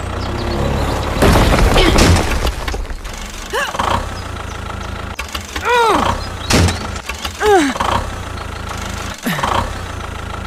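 Low steady engine hum of a tractor, with a louder rough stretch about a second in. Over it, several short squeaky calls that rise and fall in pitch come in the second half.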